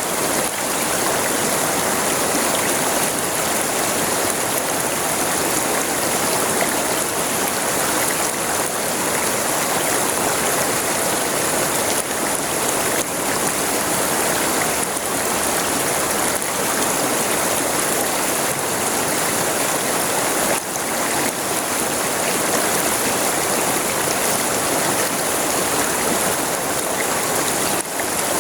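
River water flowing steadily over its bed, a constant rushing and splashing with a bright hiss.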